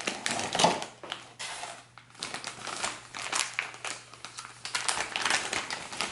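Plastic packaging crinkling and rustling as it is handled and opened, with irregular small crackles and ticks.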